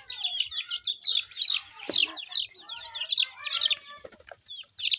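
A flock of young chickens peeping: many short, high, down-slurred chirps overlapping, with a brief lull about four seconds in.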